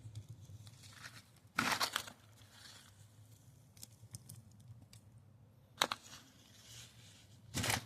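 Digging in dry garden soil: short scraping, tearing bursts as soil and roots are loosened, one about a second and a half in, a sharp one near six seconds and one at the end.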